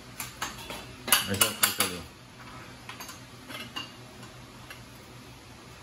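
Sharp metallic clinks and rattles of a motorcycle's exhaust pipe and its steel mounting bracket being worked loose by hand, with a quick cluster about a second in and a few lighter clicks after.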